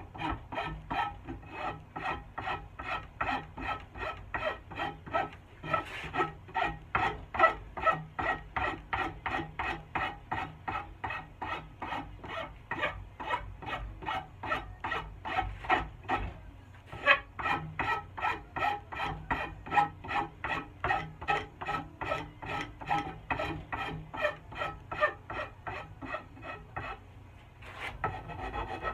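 Nicholson rasp cutting a wooden axe handle in steady push strokes, about two to three a second, rounding and shaping the bulbous palm swell at the handle's butt. The strokes break off briefly about halfway through and stop shortly before the end.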